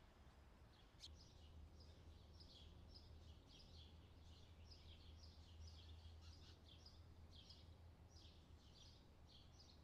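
Faint bird chirping: short, high, falling chirps about three a second, over a low steady hum.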